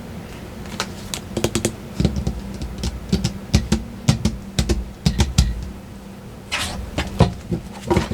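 Tarot cards being gathered up and handled on a table: a run of sharp clicks and taps, with a short rustling swish of cards about six and a half seconds in.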